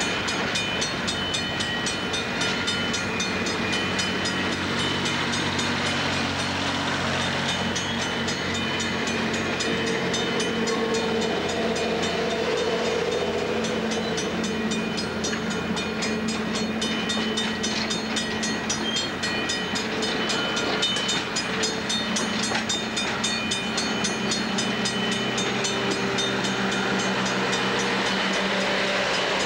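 Passenger cars of an excursion train rolling past a grade crossing: a steady rumble and rattle of wheels on rail. A rapid, evenly repeating ring from the crossing bell runs over it.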